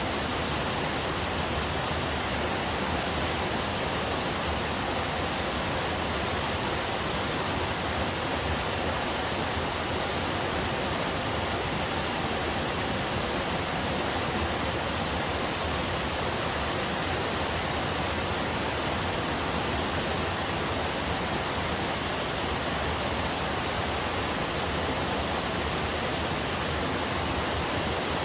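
Small forest waterfall and river rushing over rocks: a steady, even rush of water with no breaks.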